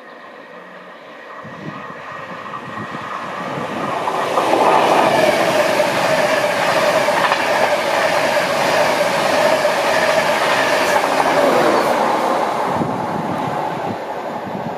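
InterCity 225 express train, Mark 4 coaches pushed by a Class 91 electric locomotive, passing at speed. A rushing noise builds as it approaches, stays loud with a steady hum for about eight seconds as the coaches go by, then eases as it draws away.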